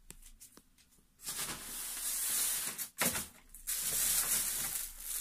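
Plastic packaging rustling and crinkling as it is handled, starting about a second in after a few faint clicks, with two short breaks in the middle.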